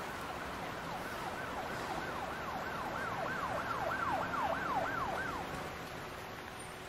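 A distant emergency-vehicle siren wailing, its pitch sweeping up and down about twice a second, swelling and then fading away about two-thirds of the way through, over a steady hiss of rain.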